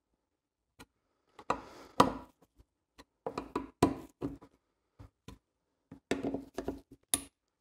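Hand screwdriver driving the new screws into a plastic lawnmower carburettor: a run of irregular clicks and knocks as the tool turns and bumps against the screw heads and carburettor body, with a brief high squeak near the end.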